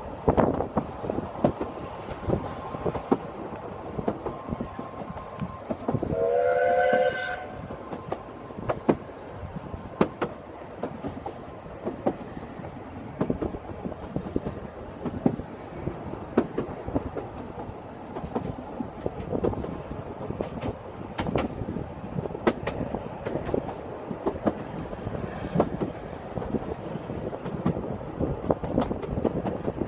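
Narrow-gauge steam train running, heard from an open carriage window: a steady rumble with wheels clicking over rail joints. About six seconds in, the locomotive's steam whistle blows once for about a second and a half.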